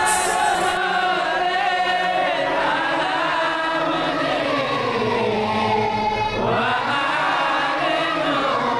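Crowd of men chanting together in unison, one long rising and falling chant of many voices with only a brief break about six seconds in.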